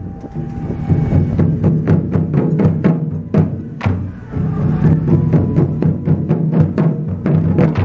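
An ensemble of Japanese taiko drums (barrel-shaped nagado-daiko on stands) beaten with wooden sticks in a fast, driving rhythm: deep booming drum tones under sharp stick strikes.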